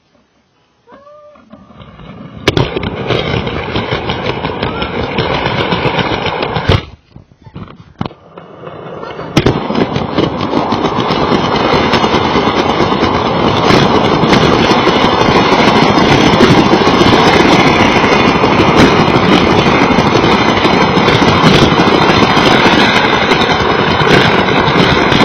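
Lego toy train running along its plastic track, heard from a camera riding on it: a loud, steady rattle with many fine clicks from the wheels and motor. It stops briefly about seven seconds in, then starts again and keeps going.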